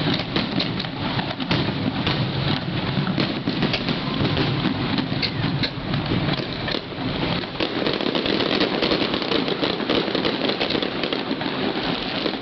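Fireworks going off in a continuous barrage: dense crackling over a steady low rumble.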